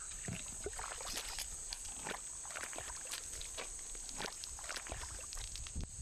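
Steady high-pitched drone of insects, with faint scattered ticks and rustles.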